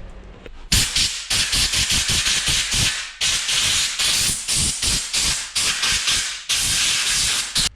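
Pressurised spray hissing in several long bursts with short breaks, used to clean and lubricate a dirty heater blower fan motor; it stops abruptly at the end.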